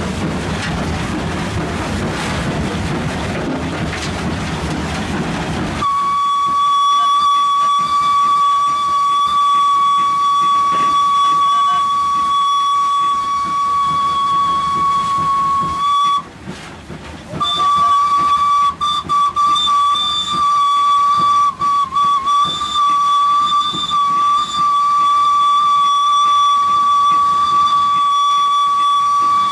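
WP-class 4-6-2 steam locomotive running, heard from the cab as a broad rumble. About six seconds in, its steam whistle starts: one steady high note held for over twenty seconds, broken once briefly near the middle.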